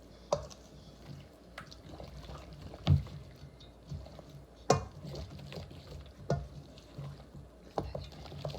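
A spoon working through a thick, wet spinach-avocado dip in a container, with scattered clicks and several sharp knocks of spoon against container, the loudest about three and five seconds in.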